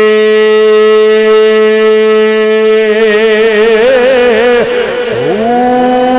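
A man's voice holding one long sung note of a chanted religious verse, amplified through a microphone, then breaking into a wavering ornament about three seconds in, sliding down near five seconds, and settling on a slightly higher held note.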